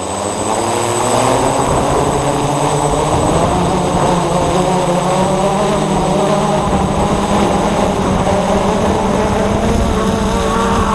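Multirotor drone's electric motors and propellers spinning up, then running steadily with a dense buzzing whine whose pitch wavers slightly as the throttle changes.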